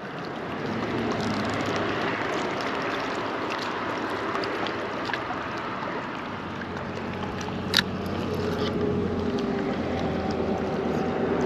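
Wind and small waves washing steadily against a rocky shoreline, with a single sharp click about eight seconds in and a faint low hum over the second half.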